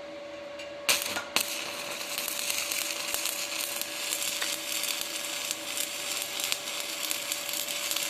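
Stick (shielded metal arc) welding: the arc strikes with two sharp cracks about a second in, then settles into a steady crackling sizzle as the first fill pass is laid, the electrode dragged along the joint.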